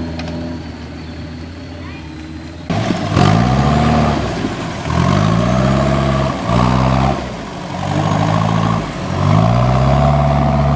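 Off-road 4x4 engine under load, running low and steady at first. About two and a half seconds in it gets suddenly louder, then revs up in about four bursts, each rising in pitch.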